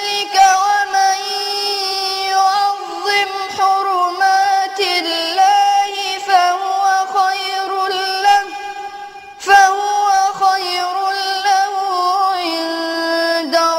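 A boy's voice reciting the Quran in a slow melodic chant, drawing out long, wavering, ornamented notes. He takes one short breath about nine seconds in.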